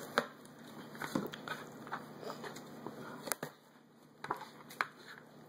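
Garlic cloves being crushed under the flat of a knife blade pressed down by hand on a cutting board: a few short sharp cracks and pops, the loudest just after the start, the rest scattered over the following seconds.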